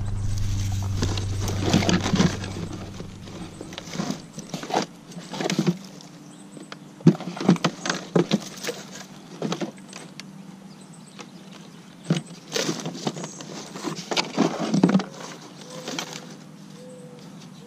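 Hands rummaging through a cardboard box of curbside trash: plastic bags and a straw hat rustling, and items clicking and knocking together in irregular bursts. A low rumble runs under the first few seconds and then stops.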